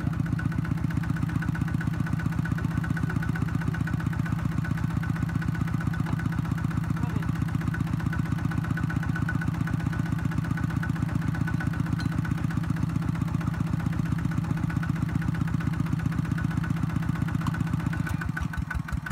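Kubota ZT120 single-cylinder diesel engine of a two-wheel hand tractor running steadily with a fast, even beat, slowing down near the end.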